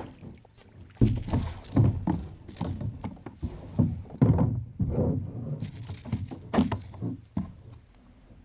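Irregular knocks, bumps and rattles of gear being handled in a kayak while a barely hooked smallmouth bass is brought in. The sounds come in a quick, uneven run and die away near the end.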